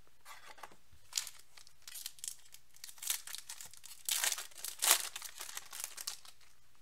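A foil trading-card pack wrapper being torn open and crinkled by hand, in a run of sharp crackles that is loudest about four to five seconds in.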